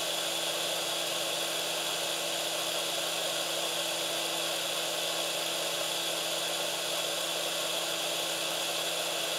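Yihua 878AD hot air gun's fan running steadily in its automatic cool-down cycle after the heater has been switched off, a steady rush of air with a low hum and a high whine. The fan keeps blowing until the gun has cooled to about 100 °C.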